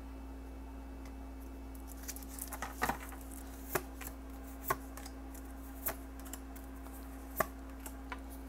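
Tarot cards being drawn from a deck and laid one at a time onto a wooden tabletop, each card landing with a light, sharp tap, about five taps spread over several seconds. A steady low hum runs underneath.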